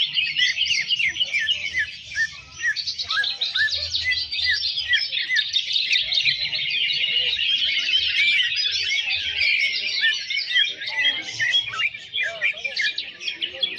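Dense chorus of many caged cucak ijo (green leafbirds) singing over one another, an unbroken tangle of quick rising and falling whistled notes with no pause.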